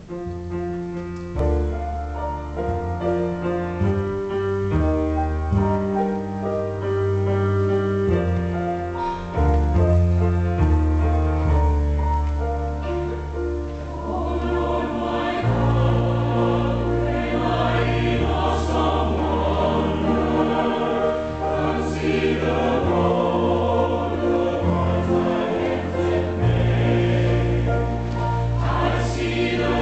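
Mixed church choir singing a hymn with keyboard accompaniment. The first half holds clean, sustained chords that step from one to the next. From about halfway the voices fill out into a fuller, wavering choral sound.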